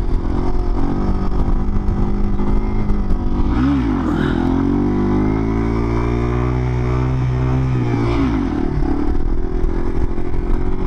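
Motorcycle engine running hard under a balance-point wheelie. About three and a half seconds in the revs dip and climb sharply, then hold steady for about four seconds before falling back near eight seconds.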